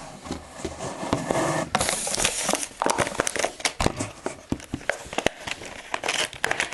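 Plastic packaging of a camera cleaning kit being handled and opened by hand: irregular crinkling and crackling with many sharp clicks, loudest in a burst of crinkling about two seconds in.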